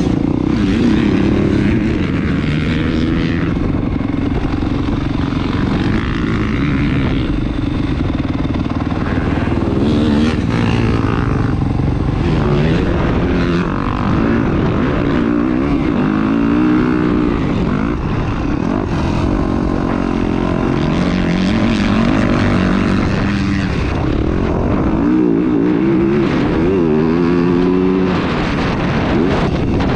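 Dirt bike engine revving up and down over and over, its pitch rising and falling with the throttle as it is ridden on a motocross track, heard from the bike itself.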